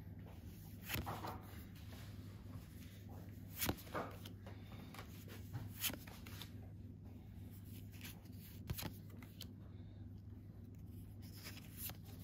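Pokémon trading cards being handled and slid one by one from the back of a stack to the front: a few brief soft swishes and flicks, spread out, over a faint low hum.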